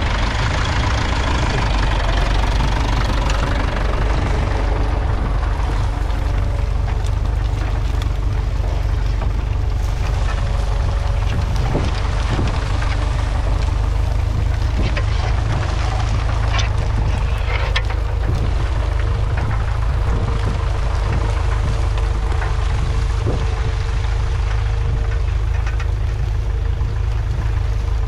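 1958 Massey Ferguson 35's 2.5-litre three-cylinder diesel engine running steadily under load, pulling a mounted two-furrow plough through the soil. A few short knocks come through around the middle.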